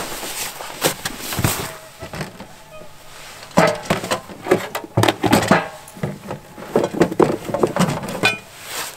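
Dog sled gear being handled and dug out of the sled bag: rustling, clicks and knocks, with short high whines from the sled dogs over it, mostly in the second half.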